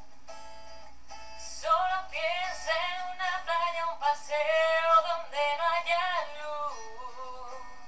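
Song: a woman sings a wordless, wavering vocal line over steady sustained backing chords. The voice comes in about one and a half seconds in and stops near seven seconds, leaving the chords alone.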